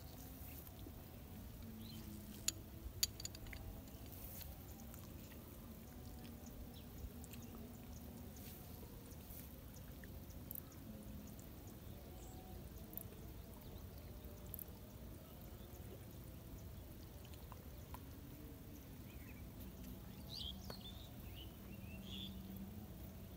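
Faint outdoor ambience with a low steady background, two sharp clicks about three seconds in, and a few short high chirps near the end.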